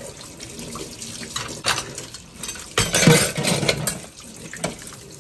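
Kitchen tap running into a stainless steel sink while utensils are rinsed under the stream, water splashing off them, with knocks and clatter of utensils against the dishes; the loudest splashing and clatter come about three seconds in.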